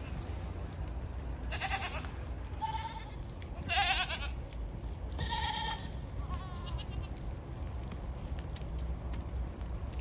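Goat bleating about five times in short, quavering calls, the loudest about four seconds in, over a low steady rumble.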